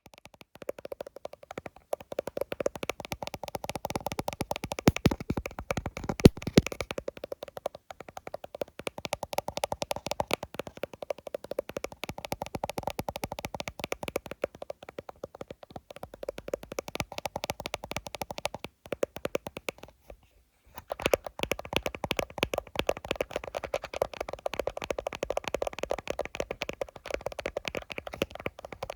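Rapid fingernail tapping on an iPhone, many quick taps a second in continuous runs, with a brief pause about two-thirds of the way through.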